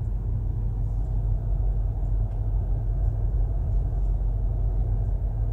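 Steady low rumble of a BMW's engine and running gear, heard inside the cabin as the car reverses slowly.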